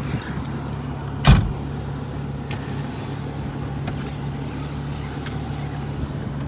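Car engine and road noise heard from inside the cabin, a steady low hum as the car gets under way. One sharp knock about a second in is the loudest thing.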